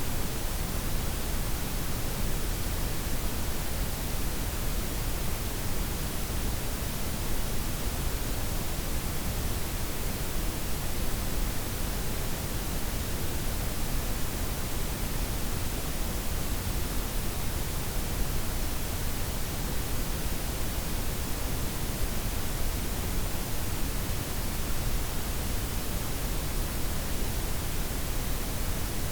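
Synthetic noise for sleep: a softened white noise layered with pink and brown noise, a steady even hiss with a deep rumble underneath and no changes.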